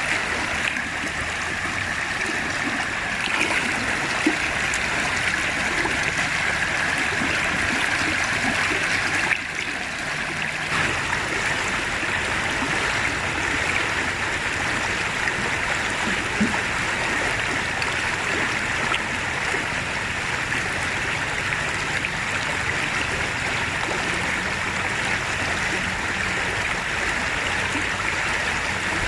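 Water of a rocky stream rapid rushing steadily, with a brief dip about nine seconds in.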